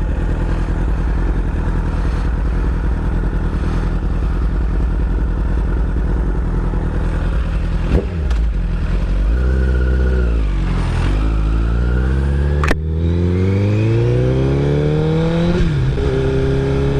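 Honda CBR1000RR's inline-four engine running steadily at low speed, then pulling away, its revs climbing, dropping at a gear change and climbing again before a second change, with a couple of sharp clicks.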